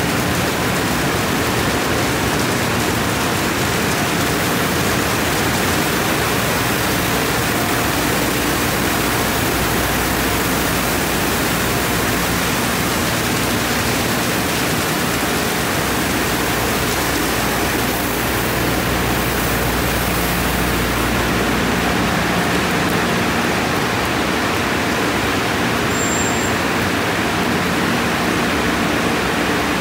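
Tunnel car wash at work: spinning cloth wraparound brushes scrubbing a car under spraying water, a loud, steady rush of water and cloth with a low steady hum underneath.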